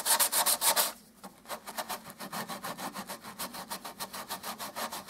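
Hand sanding with a sanding sponge: quick back-and-forth rubbing strokes, about six a second, over patched wood filler on painted timber, smoothing the repair before painting. The strokes are heavier for about the first second, then lighter.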